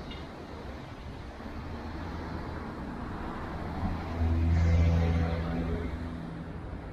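A motor vehicle passes close by over a steady traffic rumble, its engine hum swelling about four seconds in and fading away by about six seconds.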